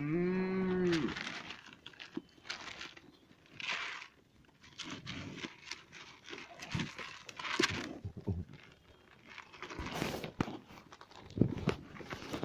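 A farm animal gives one short low call at the start. Then come scattered crunching and rustling sounds as a sheep eats feed pellets from a tub on a dirt yard.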